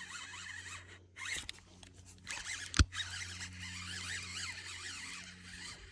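Fishing reel whirring in quick, zipping runs while a hooked bass is being fought. A sharp knock comes a little under three seconds in.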